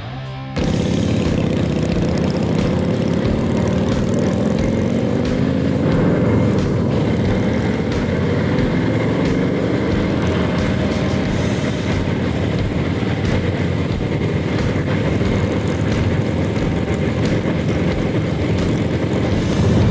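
Vintage Harley-Davidson motorcycles running at road speed, heard from a camera on one of the bikes, with wind rushing over the microphone. The engine note drifts up and down with the throttle; it comes in abruptly about half a second in.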